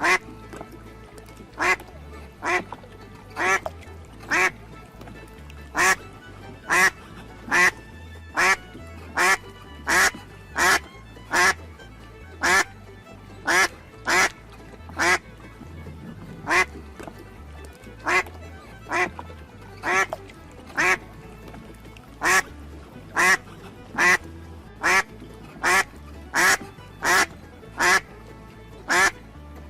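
Duck quacking over and over: single short quacks, evenly spaced a little under a second apart, over quiet background music.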